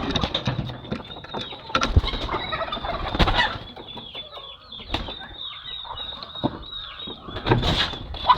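A flock of chickens calling, with many short, high, overlapping peeps and clucks. A few sharp knocks and scuffs come in between.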